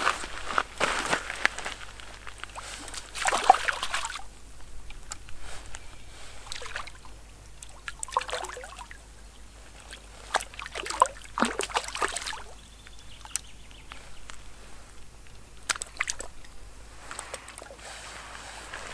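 Water sloshing and splashing in irregular bursts as a hooked crucian carp thrashes at the surface while it is reeled in, loudest about three and a half seconds in.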